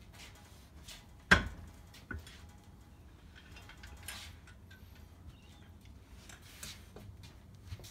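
Metal body of a Scott Bonnar Model 45 cylinder mower being turned over by hand. A sharp knock comes about a second in, then a lighter knock and quiet clunks and rustles as it is set upright.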